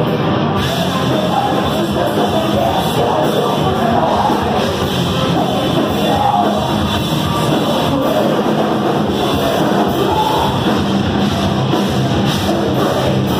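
Heavy metal band playing live: electric guitars and drum kit, loud and unbroken, with vocals.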